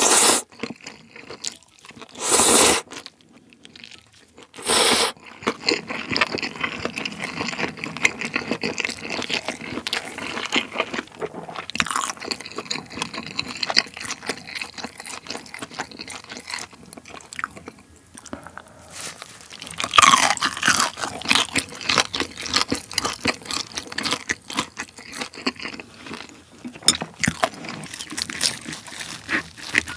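Close-miked eating: three short slurps of chewy noodles in the first few seconds, then steady chewing and crunching of crispy roast pork hock skin, loudest around twenty seconds in.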